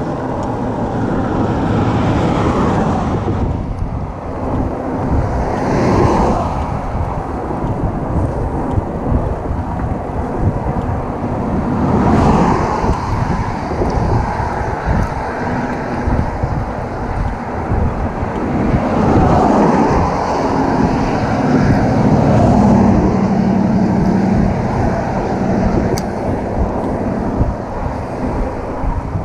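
Wind rushing over the microphone of a camera on a moving e-bike, over a steady low road and tyre rumble. Several vehicles pass in the next lane, each swelling and fading.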